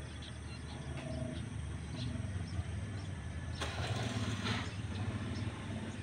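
A low, steady engine rumble, with a brief rush of noise a little past halfway through.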